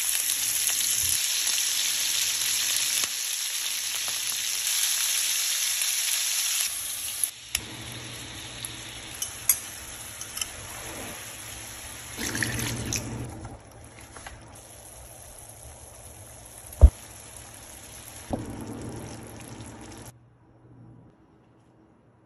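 Scallops searing in hot oil in a cast-iron skillet: a loud, steady sizzle. After about seven seconds the sizzle is quieter as shrimp and scallops cook in a buttery sauce, with stirring, a few clicks and one sharp knock about seventeen seconds in, and the sound stops near the end.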